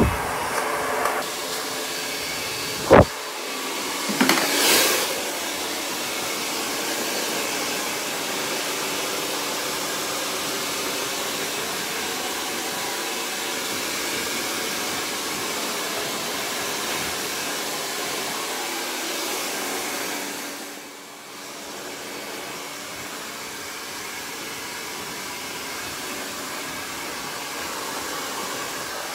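Handheld hair dryer blowing steadily during a blow-dry, with a sharp knock about three seconds in. The airflow sound dips briefly about twenty-one seconds in, then carries on a little quieter.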